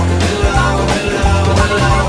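Background music: a rock song with guitar and a steady bass beat.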